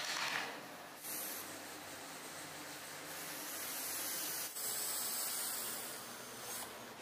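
A short scrape of a chisel on wood, then a cordless drill runs steadily as its bit bores into the carved wooden exhaust tips, with a brief pause a little past halfway.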